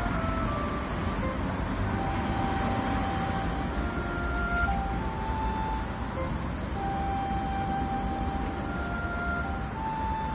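Steady road traffic noise, with a slow melody of long held notes playing faintly over it.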